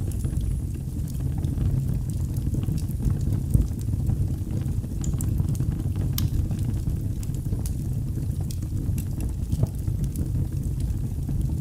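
Wood fire burning in a fireplace: a steady low rumble of flames with scattered sharp crackles and pops, one louder pop about three and a half seconds in.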